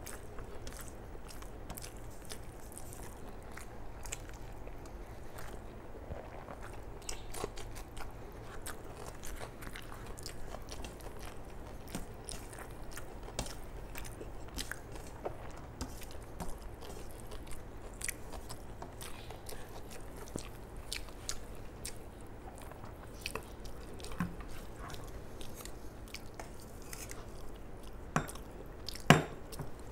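A person chewing mouthfuls of rice eaten by hand, close to a clip-on microphone, with many small wet clicks throughout. A sharp clink near the end as a steel serving spoon knocks the metal curry pan.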